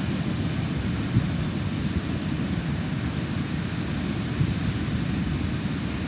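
Wind buffeting the microphone: a steady low rumble without a break.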